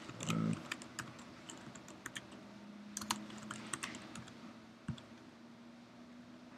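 Typing on a computer keyboard: irregular key taps a few at a time as a short clip name is entered.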